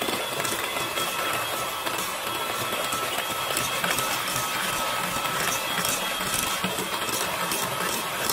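Electric hand mixer running at a steady speed, its wire beaters whirring through thick creamed cake batter in a stainless steel bowl as egg yolks are beaten in.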